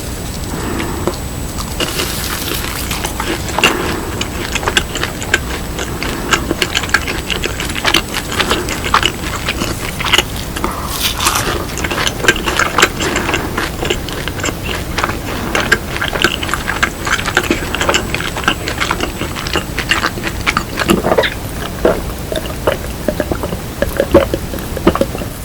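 Close-miked chewing of fried cheese balls: a dense, continuous run of small crisp crackles and mouth clicks.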